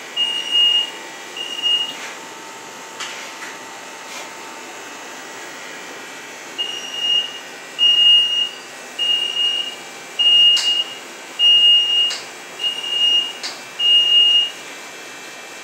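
Small electric mobility scooter's warning beeper sounding a steady run of short, high beeps about once a second, briefly at the start and again through most of the second half, with a few sharp clicks between.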